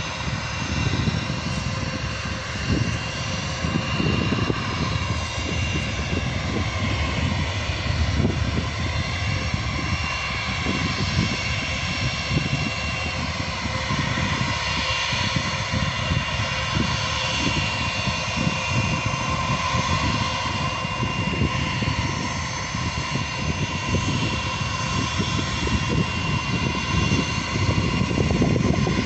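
Jet airliner engines running at an airport: one jet taking off and another taxiing. They make a steady noise with a thin high whine over an uneven low rumble.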